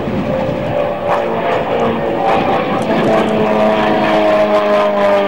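Single-engine aerobatic propeller plane's piston engine droning high overhead as it pulls out of a dive, its note rising steadily through the second half.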